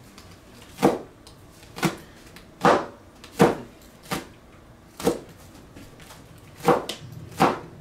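Kitchen knife slicing green onions on a plastic cutting board: about eight sharp chops, roughly one a second, each knocking on the board.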